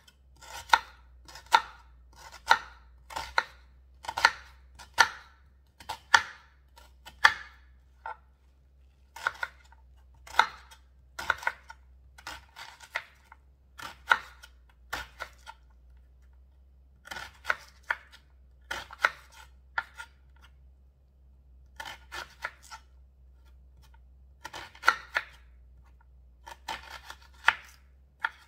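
Chef's knife chopping a white onion on a wooden cutting board: a series of sharp knocks, about one or two a second, in short runs with brief pauses between.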